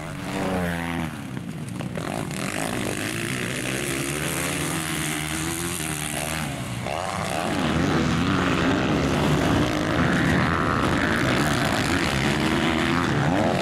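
Motocross bike engines racing, revving up and down through the gears as riders accelerate out of turns and over jumps. The sound gets louder about halfway through as bikes pass closer.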